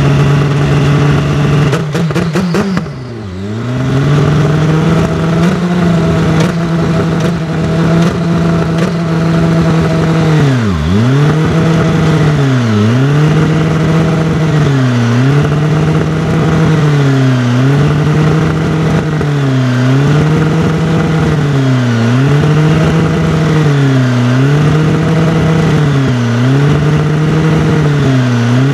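Dallara SF14 Super Formula car's Honda turbocharged two-litre four-cylinder engine running at a raised idle during warm-up. About two seconds in come a few sharp cracks as the revs drop briefly. From about ten seconds on, the revs dip and recover in a regular rhythm, about every two seconds.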